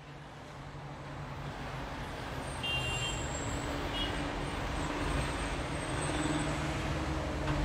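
Road traffic noise at a junction: a steady hum of idling and passing engines that fades in and grows louder over the first few seconds, with a few brief high tones.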